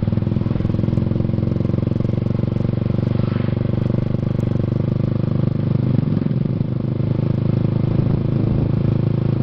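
Motorcycle engine running steadily under way, its note shifting slightly about six seconds in.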